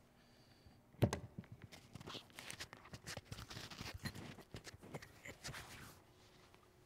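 Microphone handling noise: a sharp thump about a second in as the lectern's gooseneck microphone is grabbed, then irregular rustling, scraping and clicking as it is moved about, dying down near the end.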